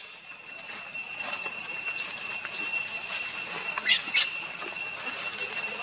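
A steady high-pitched insect drone, likely cicadas, that grows louder, with a baby monkey giving two short sharp squeals about four seconds in.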